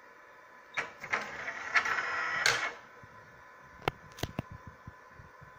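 Bio-Tek Synergy HT microplate reader retracting its plate carrier: a click, then the carrier motor whirring for about two seconds, then several sharp clicks as the front door shuts.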